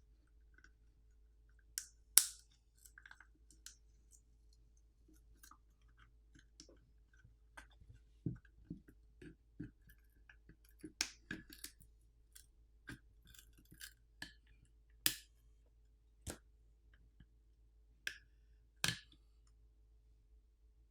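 Scattered sharp clicks and taps of a plastic power bank and small tools being handled at the start of a teardown, about a dozen in all, the loudest about two seconds in.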